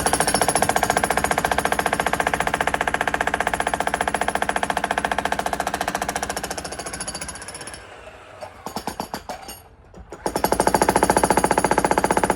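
Jackhammer breaking concrete, firing off rapid, even blows. It fades and stops around eight seconds in, gives a few single blows, then starts up again hard near the end.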